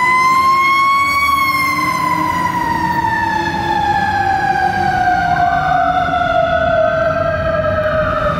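Fire rescue truck's siren wailing, rising to a peak about a second in and then slowly winding down in pitch. A second siren starts rising about five seconds in.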